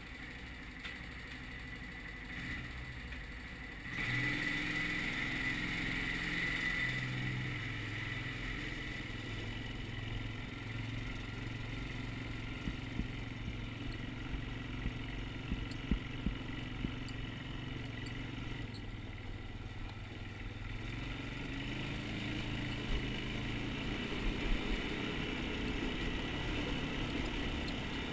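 Quad (ATV) engine idling, then opening up suddenly about four seconds in as the quad pulls away, and running steadily at low speed after that. A few sharp knocks come through as it rides over uneven ground.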